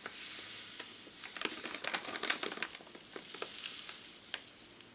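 Table salt poured from a plastic bag into a tub of water: a soft hiss of running salt, with crackles and small clicks from the handled plastic bag.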